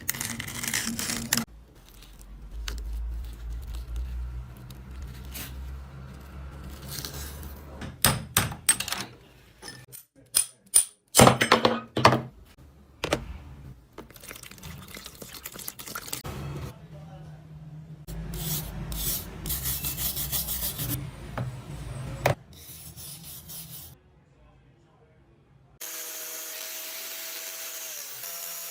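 Pliers restoration work in short cut-together clips: rubbing and scraping on metal, a cluster of sharp clicks and knocks, then a steady hiss in the last few seconds.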